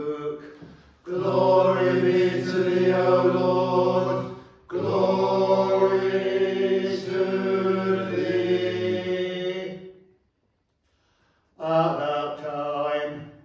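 Male voices singing Orthodox liturgical chant in two long, drawn-out phrases that stop about ten seconds in. After a short silence, a man's voice starts intoning near the end.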